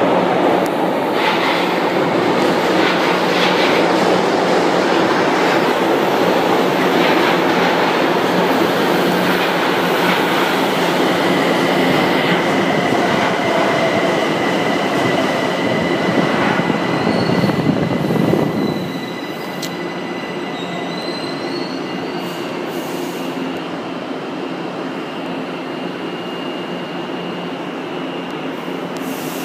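São Paulo Metro Line 1 train pulling into an underground station: loud rumbling of wheels on rail with a steady high squeal over the middle as it brakes. About two-thirds of the way through the sound drops off sharply as the train comes to a stop, leaving a quieter steady hum with thin high whining tones.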